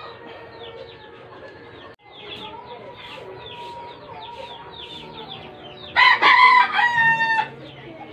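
A rooster crows once, loud, starting about six seconds in and lasting about a second and a half, over a steady background of short high chirps.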